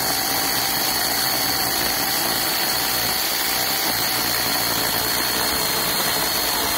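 Small battery-powered one-hand chainsaw running at steady speed and cutting through a wooden post, with a constant high whine over the chain chewing the wood.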